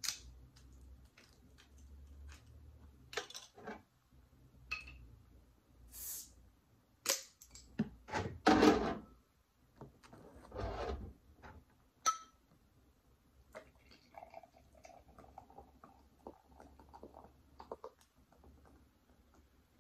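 A bottle of Martinelli's sparkling cider being opened and poured, with clicks and clinks of glass and cap being handled and a short hiss of released fizz about six seconds in.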